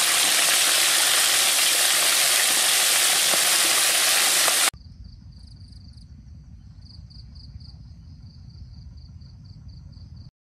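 Small sharp-nosed fish deep-frying in a wok of hot oil, a loud steady sizzle. It cuts off abruptly about five seconds in. After that comes a much quieter outdoor bed: a low rumble and insects chirping in a high pulsing trill, a few pulses a second.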